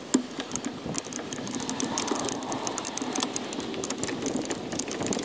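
Loose gravel crunching and shifting underfoot, a dense crackle of small clicks that cuts off suddenly near the end.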